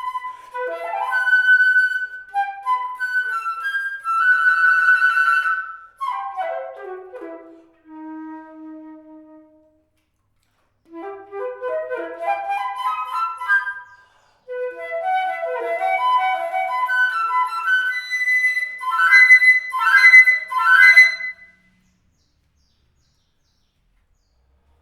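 Solo flute playing quick melodic runs, one falling to a held low note. After a short pause come rising runs and phrases that end in rapid warbling trills, and then the playing stops.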